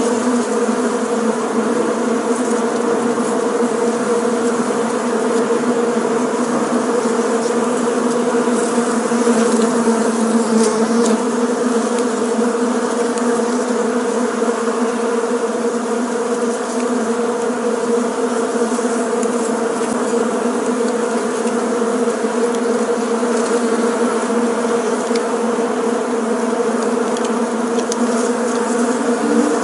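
Bees buzzing in flight: a loud, steady, unbroken hum of many wingbeats.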